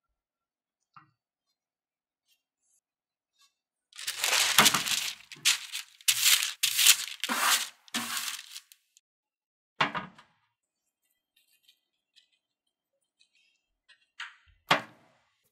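Parchment paper crinkling and crackling loudly for about five seconds as it is laid onto a metal baking tray and pressed flat, with one more crackle shortly after. Near the end, a short sharp tap as a glass is set down on the paper.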